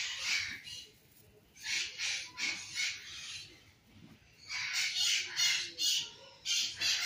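A flock of parrots screeching harshly in repeated bursts, several calls in quick succession, a lull, then more. The racket comes from the birds being fed.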